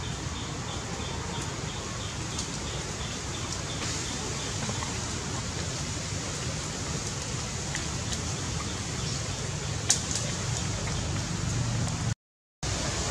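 Outdoor forest ambience: a steady hiss with a faint high chirp repeating about three times a second for the first few seconds, then a single sharp click near ten seconds. The sound cuts out completely for about half a second near the end.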